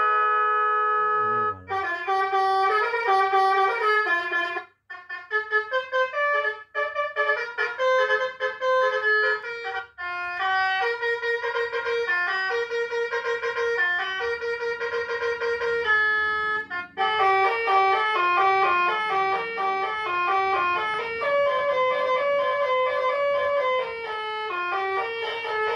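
Electronic 'basuri telolet' bus horn playing its melodic tune patterns, a run of electronic notes changing pitch several times a second, with brief pauses between tunes about 5, 10 and 17 seconds in. At the very start the tail of a long, steady ship-horn tone fades out.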